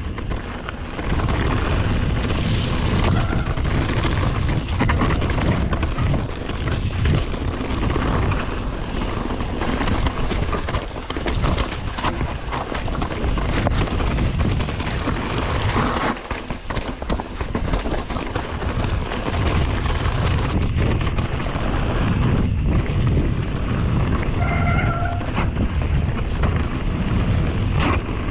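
Mountain bike riding down a wet, gravelly singletrack, heard from a rider-worn camera: wind rushing over the microphone, tyres rolling over wet gravel and stones, and the bike's constant knocks and rattles. A short pitched squeal comes about 25 seconds in.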